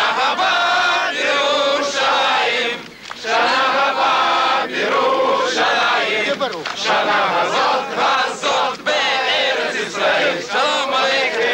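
A crowd of many voices singing together, in held notes that break and start again about once a second.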